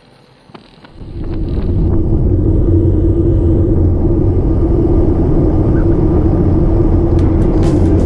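Wind rushing over the microphone with road and tyre rumble from a road bike on Continental GP5000 tyres, coasting downhill at about 30 km/h. It comes in loudly about a second in and then holds steady.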